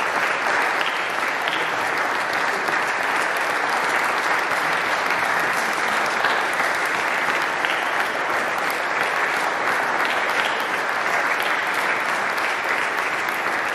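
Audience applauding: a dense, steady run of many hand claps.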